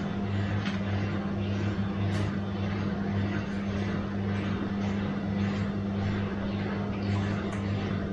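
Bosch washing machine running: a steady low motor hum under a swishing of the drum that repeats about twice a second.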